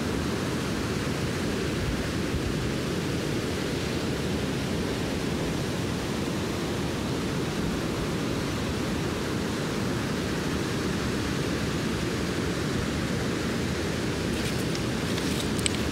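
Steady rush of surf breaking on the beach, mixed with wind buffeting the microphone. A few light clicks near the end.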